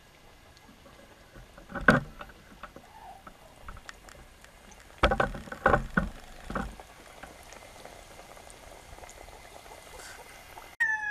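Smallmouth bass fillets deep-frying in hot oil in a cast-iron skillet, a steady faint sizzle. A few loud knocks come about two seconds in and again around five to seven seconds. A chicken's call starts right at the end.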